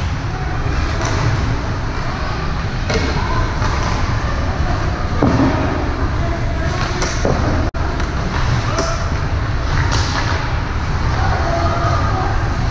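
Ambience of an indoor youth game: a steady din of indistinct voices and low rumble, with several sharp knocks and thuds scattered through it.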